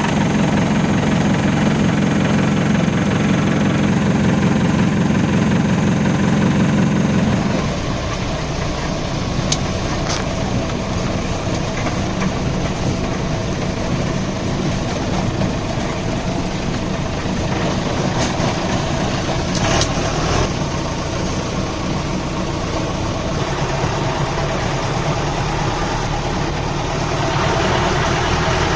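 Jeep engine running steadily, louder for the first seven or eight seconds and then settling to a quieter idle.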